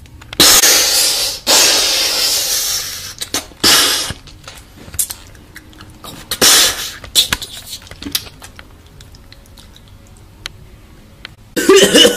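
Bomb explosion sound effect: a sudden loud burst of hissing noise about half a second in that runs on for a couple of seconds, then two shorter hissing bursts, then scattered clicks and faint crackle.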